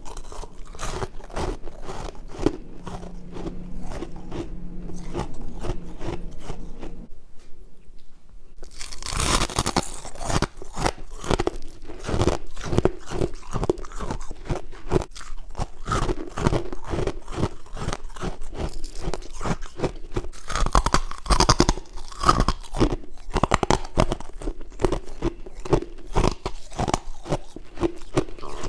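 Close-miked crunching and chewing of chunks of freezer frost (humidifier frost), a rapid run of crisp crunches that pauses briefly about seven seconds in, then grows denser.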